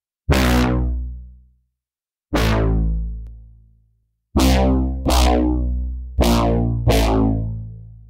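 Cherry Audio Dreamsynth DS-1 software synthesizer playing a lead preset: six single notes, each with a sudden bright attack that fades away, played in an uneven rhythm with two pairs close together in the second half.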